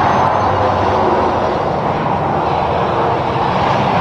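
Tractor-trailer driving past at highway speed: steady tyre and engine noise mixed with the traffic.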